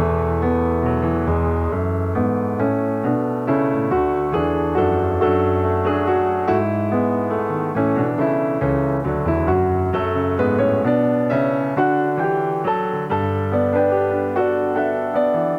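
Background piano music: a steady run of keyboard notes with a regular beat.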